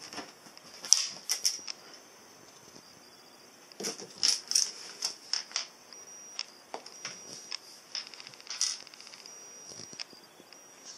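A cat scuffling and pouncing at a small stuffed toy, making irregular clicks and rustles in scattered clusters, loudest about a second in and again between about four and six seconds in. A faint, steady high whine sits underneath.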